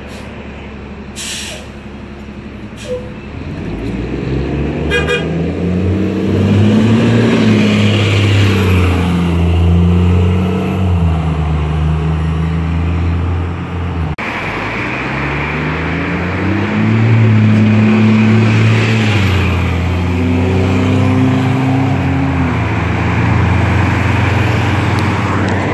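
Cummins ISL diesel engine of an Orion VII transit bus pulling away and accelerating, its pitch climbing and then dropping as the transmission shifts up. Two short hisses of air come in the first three seconds. About halfway through, the engine climbs through its gears a second time.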